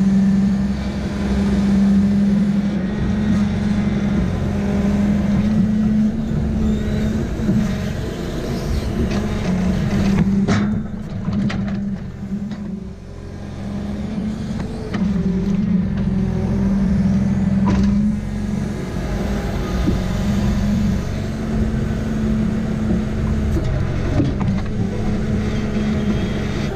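Valmet 840 forwarder's diesel engine running under the load of its hydraulic crane, the drone strengthening and easing as the grapple lifts logs, with a few sharp knocks.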